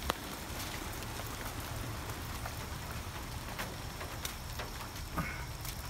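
Steady rain falling, a continuous hiss with a few scattered sharp ticks of drops.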